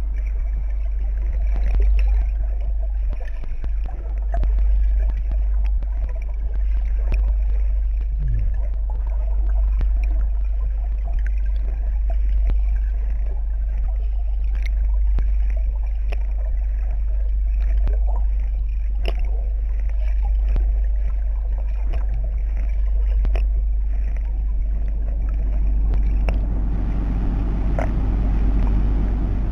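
San Francisco cable car: a steady low rumble with scattered knocks and clicks. About 26 seconds in a broader, louder rumble sets in as the car gets under way into the turn.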